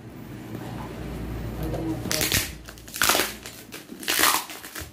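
Gift wrapping crinkling and rustling as the wrapped package is handled, in several rough bursts about two, three and four seconds in.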